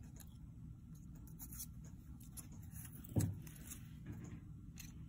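Faint rustling and light taps of wet cardboard discs being lifted from a cup and set down on paper, with one short dull thump about three seconds in.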